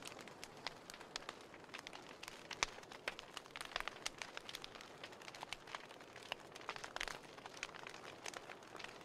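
Wood fire burning in a fireplace grate: irregular sharp crackles and pops over a soft hiss.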